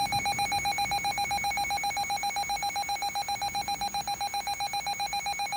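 Cell phone's Wireless Emergency Alert tone going off for a tornado warning: a rapidly pulsing, buzzy alarm tone.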